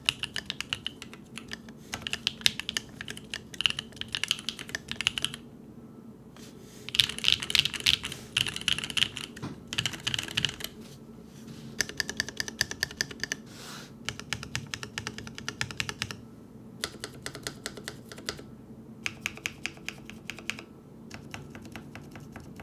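Typing on a Keebio Quefrency Rev.2, a split 65% mechanical keyboard: rapid keystroke clicks in bursts of a few seconds with short pauses between them, the fastest and loudest run about seven seconds in.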